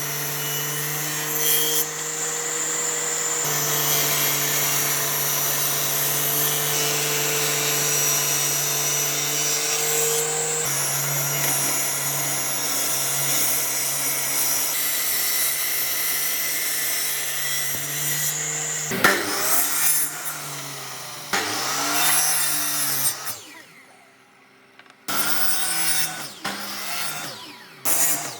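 An electric power tool running and cutting wood, a steady motor hum under a rough sawing noise. In the last third the motor's pitch dips and recovers several times, the sound stops briefly, then starts again.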